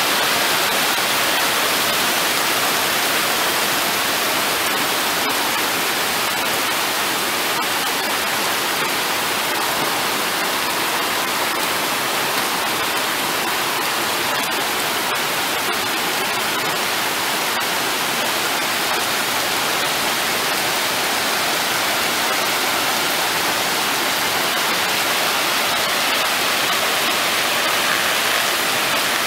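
Heavy rain pouring down steadily: a dense, even hiss of falling water, with faint ticks of single drops here and there.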